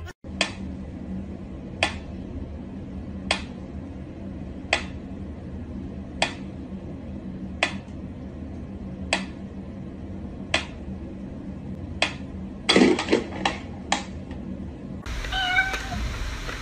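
Mechanical pyramid metronome ticking slowly and evenly, about one tick every second and a half. A cat meows briefly near the end, and then the ticking gives way to a louder, busier background.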